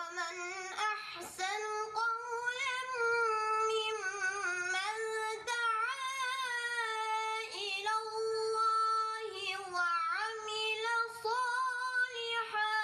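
A high solo voice singing long, held notes that waver slightly in pitch, with short breaks between phrases.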